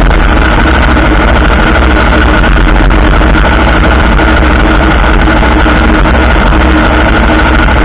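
Aprilia Tuono motorcycle engine idling steadily, loud and close to the camera.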